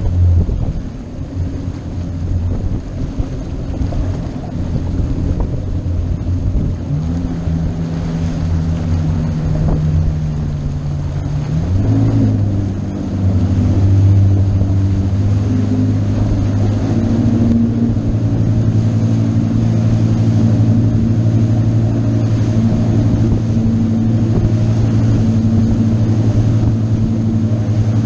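A motorboat's engine running under way, over wind and water noise. Its note steps up a little way in and rises again before the middle, then holds a louder, steady drone.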